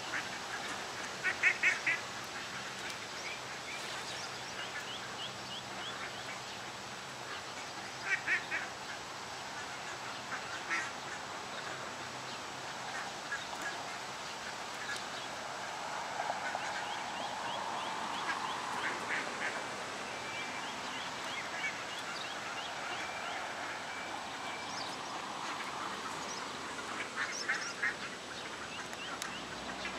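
Mallard ducks quacking in short rapid bursts, several times, over the faint, thin peeping of ducklings.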